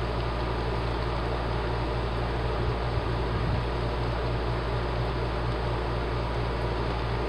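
Model coal train's cars rolling past on the track: a steady whirr of wheels on rail over a low, even hum.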